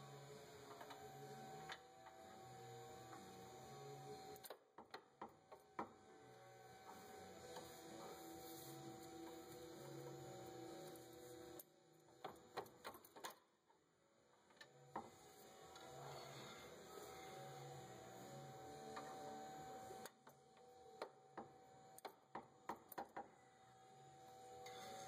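Faint steady hum broken by several short runs of sharp metallic clicks and taps: a steel pry bar working the front CV axle's inner joint out of the differential on a 2005 Chevrolet Trailblazer.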